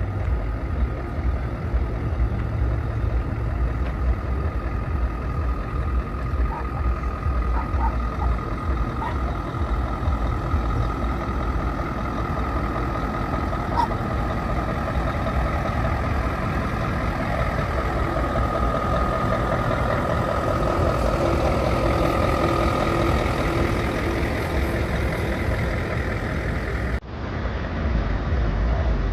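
Heavy truck engines running, a steady low rumble that swells in the middle range in the second half, then changes abruptly near the end.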